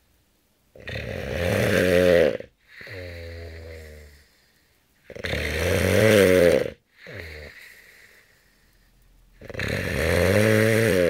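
Sleeper snoring: three loud snores about four seconds apart, each building up and stopping abruptly, with a softer breath after each of the first two.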